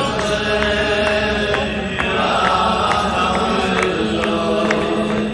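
Music: voices singing a chant-like melody over a steady beat of about two sharp ticks a second.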